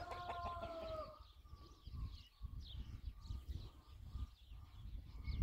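Chickens calling, with one long held call that ends about a second in, followed by short high chirps of small birds.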